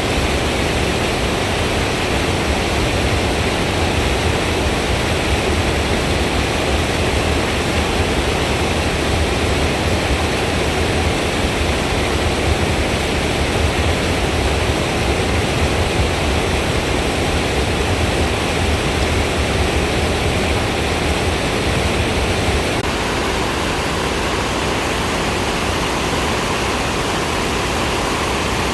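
Steady rushing of a waterfall, with a deep rumble underneath that drops away about three-quarters of the way through.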